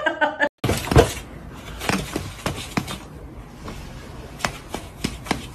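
A string of irregular sharp knocks and clatters, the loudest about a second in.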